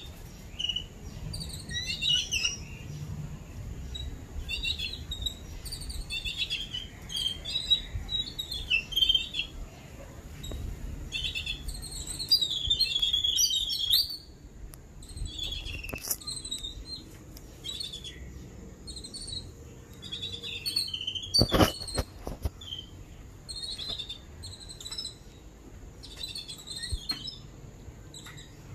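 A group of babblers ("seven sisters") chirping and calling in quick, short notes, busiest a little before the middle. A few sharp knocks sound about three-quarters of the way through.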